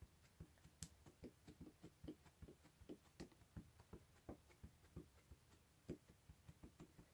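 Faint soft taps, about two or three a second, of a VersaMark ink pad being dabbed over a clear stamp to ink it.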